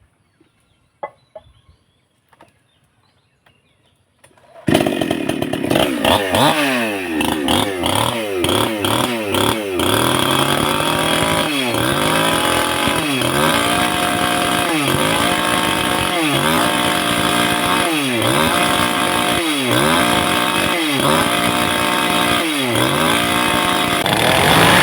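A few faint clicks, then a gasoline chainsaw engine cuts in abruptly about five seconds in and runs loud. Its engine speed repeatedly sags and recovers, roughly every second and a half, as the saw is worked against a tile.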